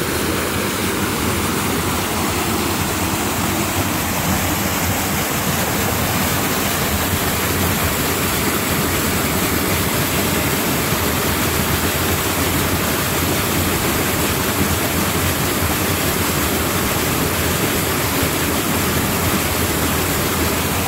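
A small cascade on a rocky mountain stream: a steady, loud rush of white water pouring over boulders.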